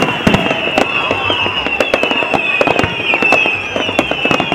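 A dense New Year's fireworks display: many bangs and pops in quick, irregular succession, with a continuous high, wavering whistling over them.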